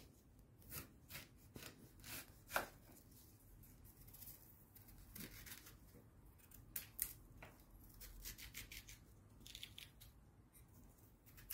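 A knife cutting through a crisp Korean pear on a wooden cutting board: a faint scatter of short slicing and tapping sounds.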